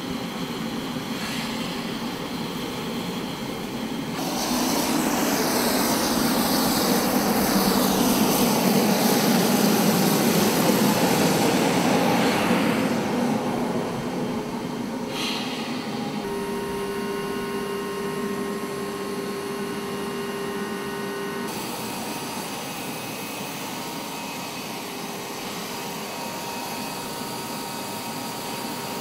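Turbine aircraft engines running on a flight line: a steady rushing whine that grows much louder for several seconds mid-way, with pitch sweeping downward, then settles into a steadier high whine with several held tones.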